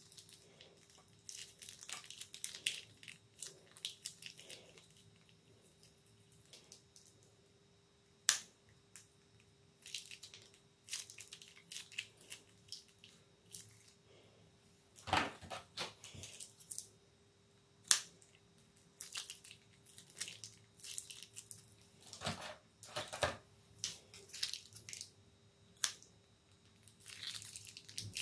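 Plastic piping bags crinkling and squelching as thick coloured liquid is squeezed out of them into a glass dish, in short irregular bursts, with two sharp clicks about eight and eighteen seconds in.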